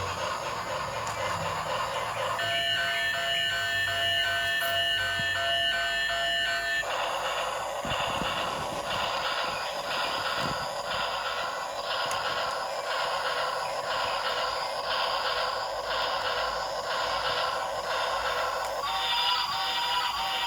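Electronic sound effects from a battery-powered toy train set playing through its small, tinny speaker. A pulsing electronic tone lasts a few seconds, then gives way to a repeating beat of about one pulse a second.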